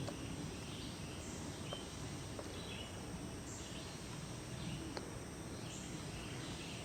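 Quiet outdoor ambience: short, high chirps repeating every second or so over a steady background hiss, with a few faint clicks.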